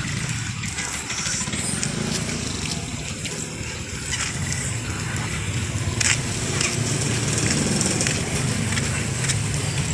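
Steady drone of a motor vehicle's engine running nearby, with scattered light clicks and one sharper click about six seconds in.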